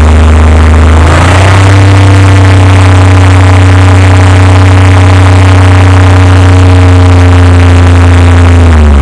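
1998 Oldsmobile 88's 3.8-litre V6 engine, revved up about a second in, held at a steady higher speed, then let back down to idle near the end. The engine has a cylinder 3 misfire that new plugs, wires and coil packs have not cured.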